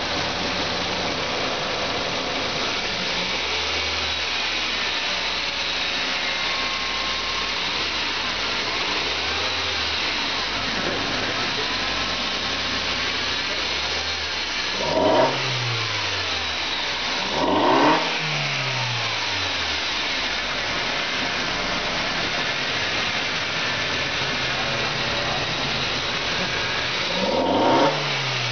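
2003 Volkswagen Passat's 1.8T turbocharged four-cylinder engine idling steadily, revved up briefly three times: about halfway through, again about three seconds later, and near the end, each rev rising and dropping back quickly.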